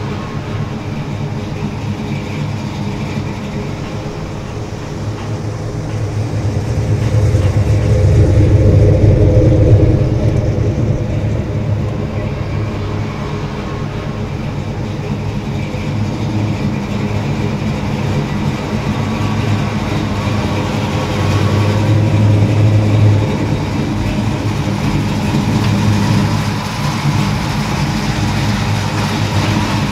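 Big-block 500-cubic-inch Hemi V8 of a 1968 Dodge Charger running with a deep, steady rumble as the car drives slowly by. It swells louder twice, about a third of the way in and again about three-quarters of the way in.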